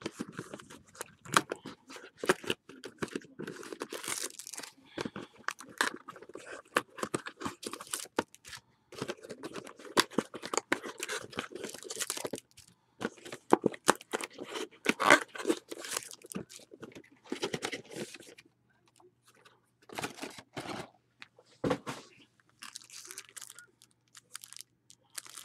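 Trading card pack wrappers being torn open and crinkled, dense for most of the stretch and sparser near the end.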